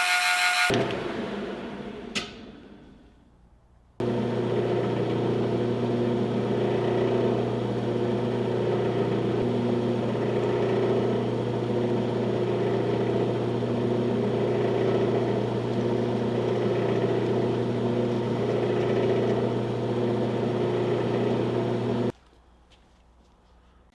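A shop machine's electric motor winds down over the first few seconds, with a single click partway through. Then, about 4 seconds in, a steady motor hum with a low drone comes in and runs evenly until it cuts off abruptly near the end.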